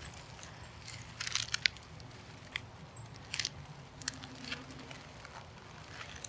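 Dry dead leaves crackling and crunching in short scattered clusters, the loudest a little over a second in, as an eastern box turtle crawls off through the leaf litter.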